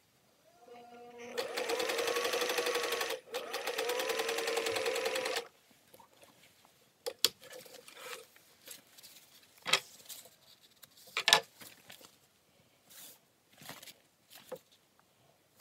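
Singer 500A sewing machine running for about four seconds, its motor whine coming up and the needle stitching at a rapid, even rate, with a brief break about halfway. Then several sharp clicks and faint handling noise.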